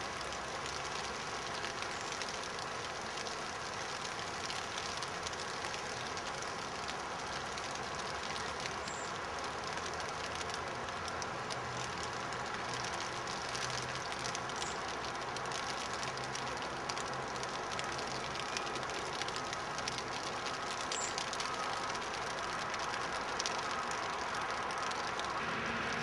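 Steady hiss and fine pattering of wet snow falling onto leaves and the ground, with a faint low drone in the middle stretch.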